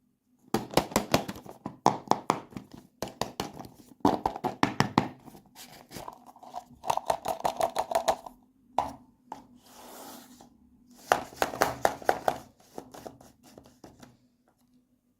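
Plastic packaging being crinkled and torn open by hand: dense runs of crackling and ripping with a few short pauses.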